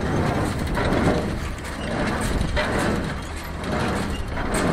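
Small square baler running slowly on the tractor's power take-off, its plunger and packers working a little loose hay, over the steady rumble of the tractor. The machinery noise swells and fades about every second and a half, with a few sharp clicks.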